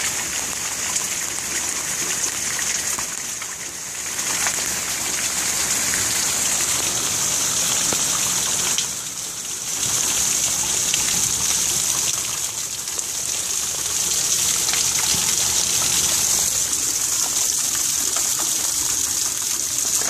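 Rainwater pouring off a roof edge and splashing onto the ground below: a steady gush of falling water, dipping briefly about nine seconds in.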